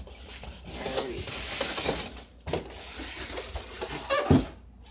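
Molded foam packing insert being worked out of a cardboard box: rubbing and rustling of foam against cardboard and plastic, with a few sharp knocks about one, two and a half, and four seconds in.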